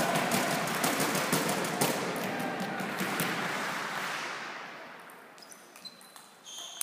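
Spectators clapping, the applause dying away over about four seconds. Then a few light clicks of the table tennis ball on bat and table as a rally starts near the end.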